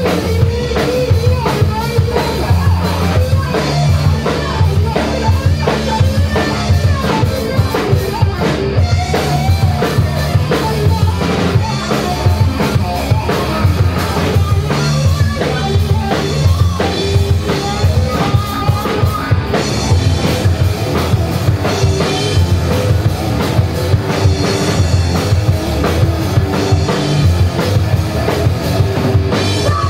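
Live rock band playing loudly: electric guitar, bass guitar and a drum kit keeping a steady beat.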